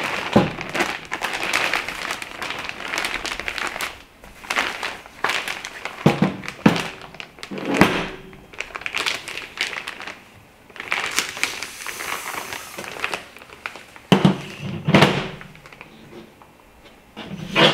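Handling noise from assembling a collapsible clamshell photo reflector: its fabric rustling and crinkling, with irregular knocks and taps from its poles and tensioning rods.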